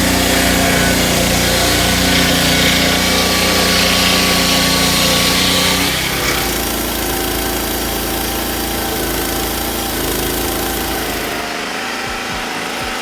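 Small engine running steadily under load. Its sound shifts about six seconds in, and again near the end.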